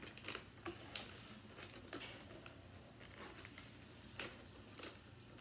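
Faint handling noise from a packaged chocolate bar being fumbled with in the hands: scattered light clicks and rustles at irregular moments.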